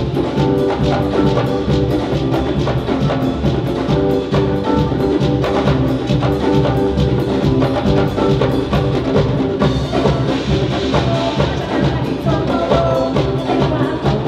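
Live band playing African-style dance music: a row of drums keeps a dense, fast, steady beat, with pitched instruments holding notes above it.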